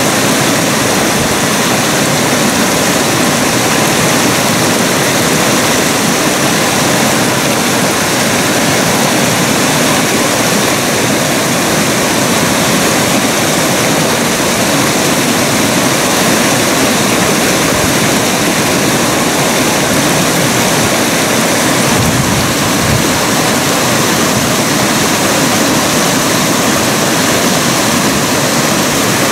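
Mountain creek rushing over rocks: a steady, loud rush of white water.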